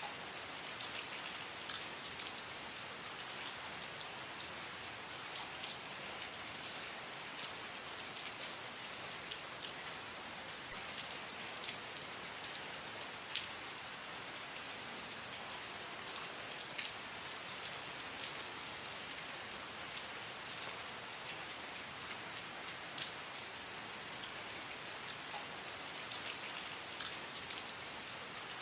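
Steady rain falling, an even hiss with many distinct drops tapping on a surface.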